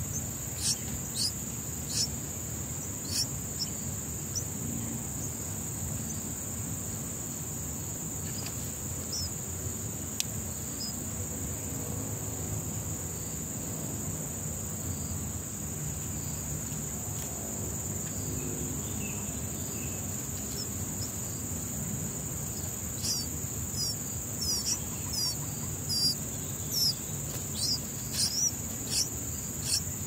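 A steady high insect drone runs throughout. Over it come short high chirps near the start, then a quick run of chirps in the last seven seconds or so, the begging calls of bulbul nestlings gaping for food with a parent at the nest.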